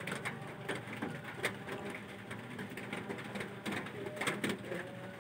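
Kaffir lime leaves being torn by hand: a quick, irregular series of crisp snaps and crackles.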